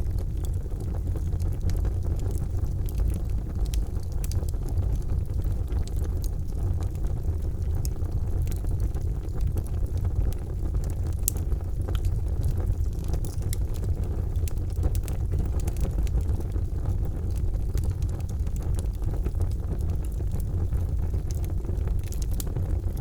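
Charcoal fire burning in a fireplace: a steady low rumble with scattered small crackles and pops.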